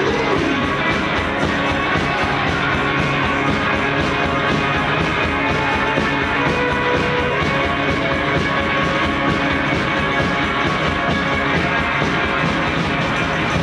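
Live garage rock and roll from a two-piece band played loud and steady: electric guitar over a driving drum beat, with a sliding note right at the start.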